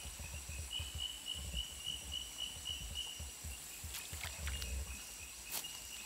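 Rainforest insects calling: a pulsing high trill about four times a second over a steady high-pitched buzz, with a low rumble of wind or handling beneath. A few sharp clicks or splashes come in the last two seconds, as a fish is pulled from the pond on a pole line.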